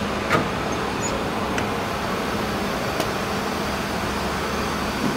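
Steady drone of factory-floor machinery and ventilation, a constant hum under a noisy hiss. A few faint clicks or knocks sound about half a second in and again about three seconds in.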